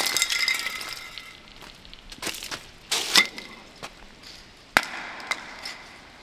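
Empty metal spray-paint can clattering on concrete with a metallic ring, then a few separate sharp knocks as it strikes hard surfaces again.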